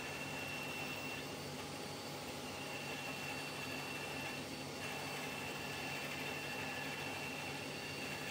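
Sears Craftsman 10-inch direct-drive band saw running steadily: a constant hum with a faint high whine over it.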